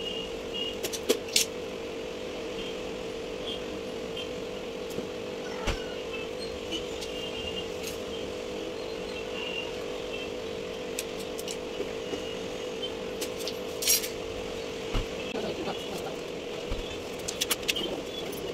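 Scattered light clicks and taps from a utility knife, a steel ruler and foam-board pieces being handled and set down, over a steady hum.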